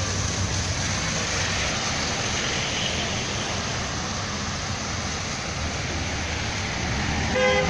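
Classic American cars and a van cruising slowly past at low speed, engines running gently under a steady hiss of street noise.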